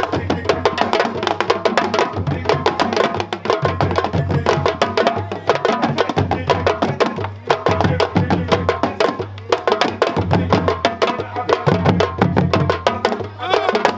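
West African drum ensemble playing live, a fast, dense rhythm of sharp strokes over a steady low drum tone.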